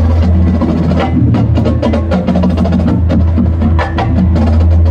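High school marching band playing its field show music, with sharp percussion hits coming thick and fast over a steady low sustained sound.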